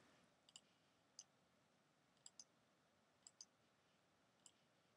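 Faint computer mouse clicks, about one a second, several in quick pairs.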